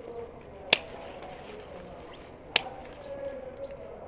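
Two sharp clicks or snaps, about two seconds apart, over faint background sound.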